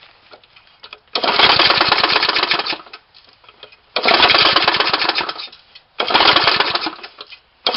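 1967 Briggs & Stratton single-cylinder lawnmower engine, converted to a piston valve and running without a carburettor. It runs in three loud, rapid-firing bursts of a second or so each and cuts out between them. The owner says the fuel mixture is hard to get right.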